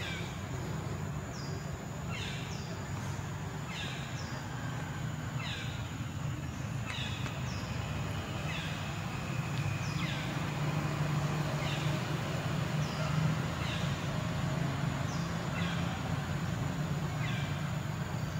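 Short, high chirping calls, each sweeping downward in pitch, repeating every second or two over a steady low hum.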